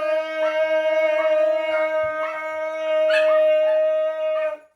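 A steady, unwavering pitched drone, reed-like, with a second lower tone under it, cutting off abruptly near the end. Short dog yips come over it every half second or so.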